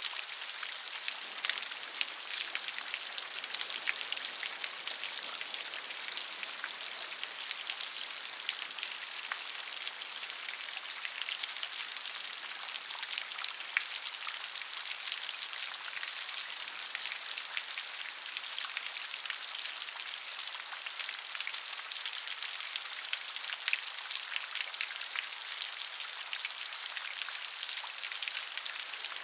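Steady rain falling, a dense high hiss dotted with many small drop ticks.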